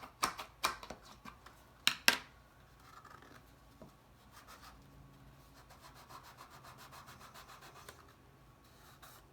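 A hand tool rubbing and pressing along glued cardstock to stick down the bottom of a paper bag. Sharp scraping strokes in the first two seconds, the two loudest around two seconds in, then a quicker run of fainter rubbing strokes through the middle.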